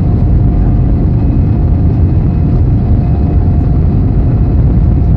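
Airbus A320's jet engines and airframe heard from inside the cabin over the wing as the aircraft rolls along the runway: a loud, steady low rumble with a steady hum above it.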